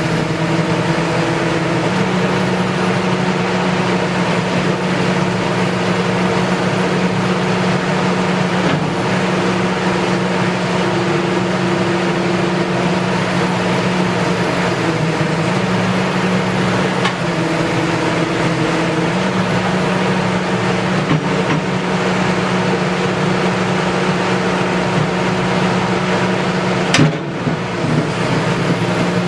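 Excavator engine running steadily under hydraulic load, its hum stepping slightly up or down in pitch every few seconds, with a brief sharp break near the end.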